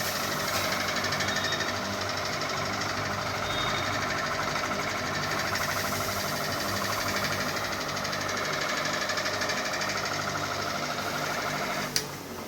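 Ceiling fan running with a fast, steady mechanical rattle. A sharp click comes near the end, and the sound is quieter after it.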